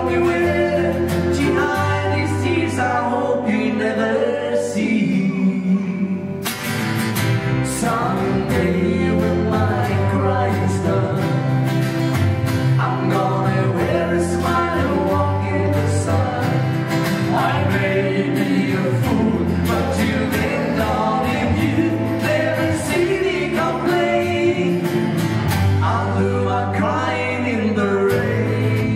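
A live band playing a country-pop song: male voices singing over strummed acoustic guitars, electric guitar, bass and drums. The drums come in fuller about six seconds in.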